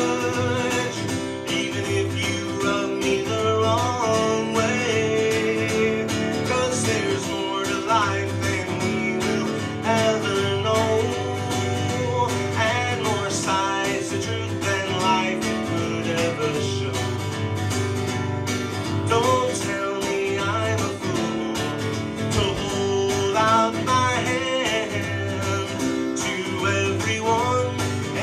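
A man singing, accompanied by his own strummed acoustic guitar.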